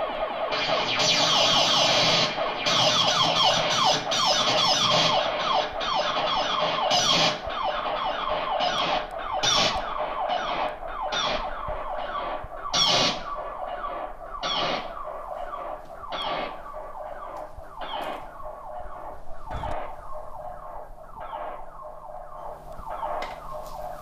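Homemade dub-siren-style dual oscillator sounding through effects pedals: a dense electronic tone rapidly sweeping up and down in pitch. From about eight seconds in it breaks into short repeated pulses a little under a second apart, which grow quieter toward the end.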